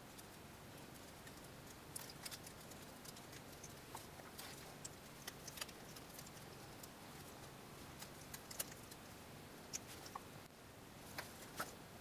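Faint, scattered clicks and small taps as a fiberglass quadcopter frame plate is handled and rubber anti-vibration grommets are worked into its holes with the fingers and fingernails.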